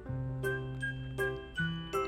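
Background music: a light, playful tune of struck, ringing notes over sustained bass notes, at a steady beat of about one and a half notes a second.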